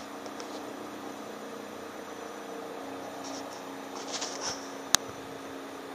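Distant air ambulance helicopter approaching, heard as a steady drone with a low hum. A few short high chirps come near the middle, and one sharp click, the loudest sound, comes just before five seconds in.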